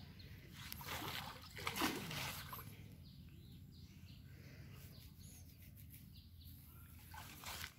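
Pond water sloshing and splashing around a person wading chest-deep, loudest in the first couple of seconds, with a few faint bird chirps.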